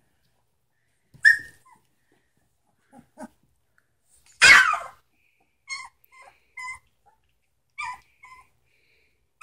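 Three-week-old Samoyed puppies yipping in play: a short yip about a second in, a louder, longer one about halfway through, then several small yips.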